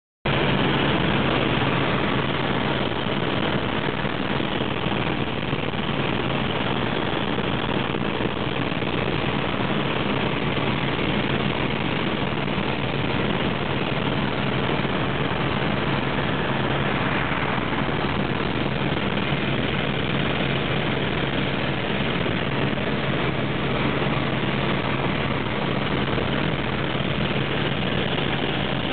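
Small aircraft in level flight: a steady engine and blade drone heard from inside the cabin, with a constant low hum under it.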